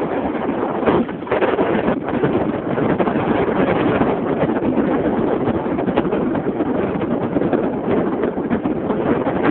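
Wind buffeting the camera's microphone: a steady, loud rushing with small gusty flutters.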